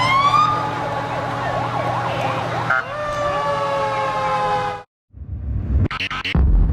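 Several emergency-vehicle sirens sound at once. One wail rises at the start, a quick up-and-down warble comes in, and the tones fall away a little after three seconds in. The sound cuts off abruptly about five seconds in, then a loud low rumble follows with a few sharp cracks near the end.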